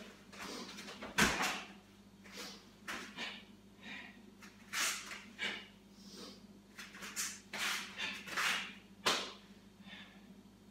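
A karate kata performed at speed: quick swishes and snaps of the gi and sharp breaths with each technique, about two a second, with a heavier thump of a bare foot landing on foam mat about a second in.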